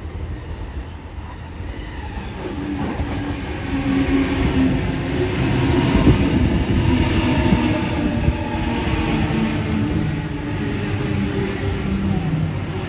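Sydney Trains double-deck electric suburban train approaching and passing close by. It grows louder over the first four seconds and stays loud as the carriages go past, with a low hum of several tones over the rolling noise.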